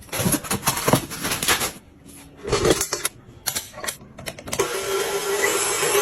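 Containers and packaging being handled and set down: a run of clicks and knocks, then a steady hiss with a low hum that starts about three quarters of the way through.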